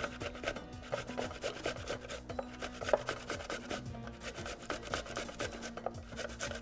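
Tomato halves rubbed down a metal box grater into a glass bowl: quick repeated rasping strokes, with one louder stroke about three seconds in.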